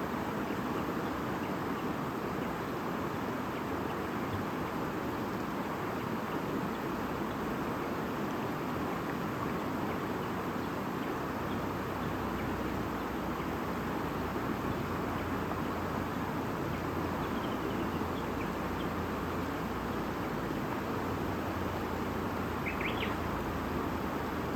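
Steady rushing and babbling of a river, with a few short bird chirps in the last part.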